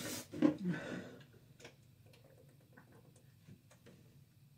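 A short breathy sound at the start and a few soft low sounds, then faint, irregular clicks and light taps of small objects being handled.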